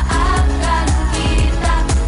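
Indonesian pop song playing, a sung melody over a steady drum beat.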